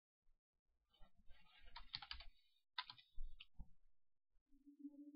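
Faint computer keyboard typing: a quick run of keystrokes starting about a second in and stopping a little over a second before the end.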